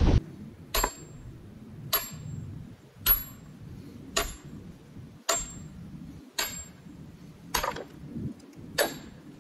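Sledgehammer blows splitting firewood rounds on a chopping block: eight sharp strikes a little over a second apart, each with a short high metallic ring.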